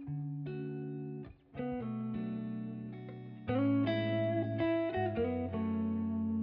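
Background music led by guitar, with sustained chords and plucked notes that change every second or so and a brief break about a second and a half in.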